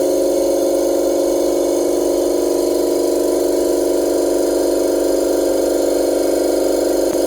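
Tiger GDG35 3 hp oil-free silent air compressor running with its intake air filters not yet fitted: a steady, very loud motor-and-pump drone.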